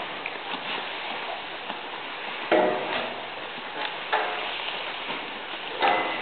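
Goats bleating: three short calls about two and a half, four and six seconds in, over a steady rustling hiss.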